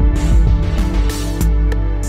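Loud music with a heavy bass and sustained, held chords, playing without a break.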